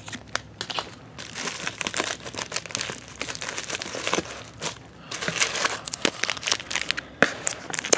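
Plastic packaging crinkling in irregular bursts as trading card packs in cellophane and foil wrappers are handled and lifted out of a box lined with bubble wrap.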